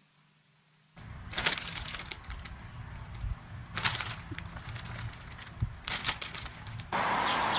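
Plastic chip bags crinkling as a kitten lies hugging them and a hand handles them, in several short bursts of rustling. This comes after about a second of near silence, and near the end it gives way to a steady outdoor background.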